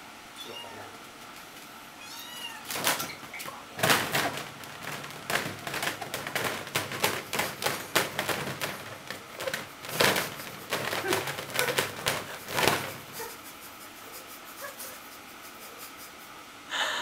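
Wire-mesh playpen panels rattling and clinking in a dense run of knocks as a kitten clambers over the top, with a few faint, high kitten mews. The rattling stops about two-thirds of the way through.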